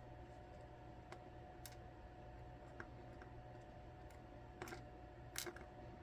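Faint, sparse clicks of small metal lock parts and tools being handled while gutting an ASSA Twin 6000 high-security lock, with a couple of sharper clicks near the end over a low steady hum.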